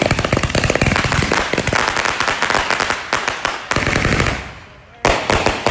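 A string of firecrackers going off as a rapid, continuous run of cracks that thins out and dies away about four and a half seconds in. A second short burst of rapid cracks follows near the end.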